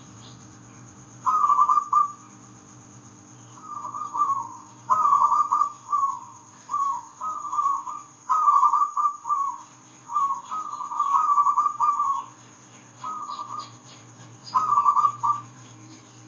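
Zebra dove (perkutut) cooing: a dozen or so short, rolling phrases of soft whistled coos with brief pauses between them. A steady low hum runs underneath.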